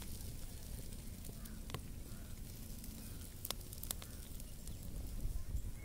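Open wood fire burning under quail roasting on bamboo skewers, the meat sizzling over the flames, with a handful of sharp crackles from the burning wood.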